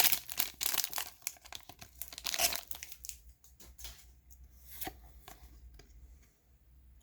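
Foil booster pack of trading cards being torn open, its wrapper crinkling for about three seconds, then a few quieter rustles and clicks as the cards are handled.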